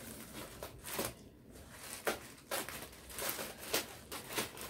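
Scissors snipping through a thin plastic mailer bag, then the plastic crinkling and rustling as it is pulled open by hand, in a series of irregular short snips and rustles.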